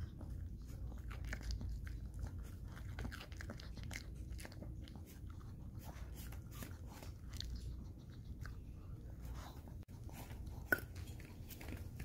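Maltese dog chewing and crunching pieces of cucumber and boiled cabbage from a ceramic bowl, in a run of irregular small crunches and clicks. One sharper click stands out about ten and a half seconds in.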